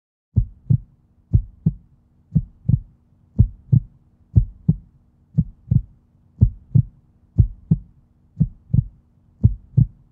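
Heartbeat sound effect: a steady run of paired low thumps, about one beat a second, starting about half a second in.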